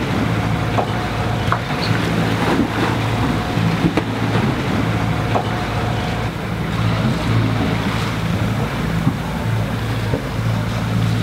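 Sailing yacht under way: water rushing and splashing along the hull with wind across the microphone, over a steady low hum.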